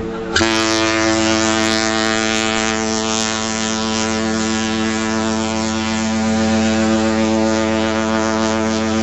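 Holland America Line Eurodam's ship's horn sounding one long, steady departure blast of several deep tones. It grows louder and rougher just after the start and holds until it stops near the end.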